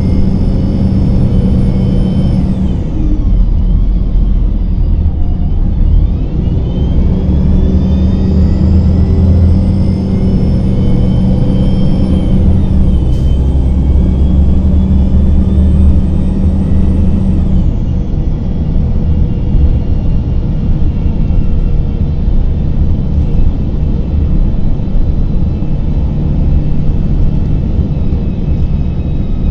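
Cummins ISM diesel engine and Voith four-speed automatic drivetrain of a 2000 Gillig Phantom transit bus, heard from inside the cabin while under way. Over a steady low engine drone, a high whine falls about three seconds in, rises from about six seconds in as the bus picks up speed, and falls again near eighteen seconds.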